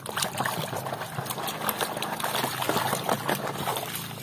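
Muddy water sloshing and splashing in a metal basin as a hand swishes a plastic toy car back and forth through it, with many quick splashes.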